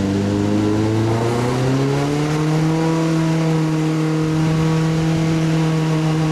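Off-road 4x4's engine pulling hard under load: its pitch climbs over about two seconds, then holds steady at high revs.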